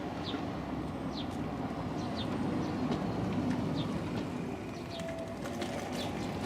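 Low rumble of the steam-hauled D51 200 train running away after passing. A bird gives short high chirps about once a second over it.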